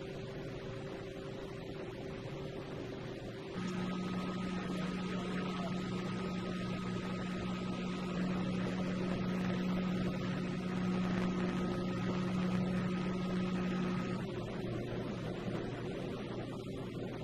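Steady electric machine hum from a Mayfran ConSep 2000 chip conveyor running. A louder low hum with a higher whine comes in about three and a half seconds in and drops out near fourteen seconds.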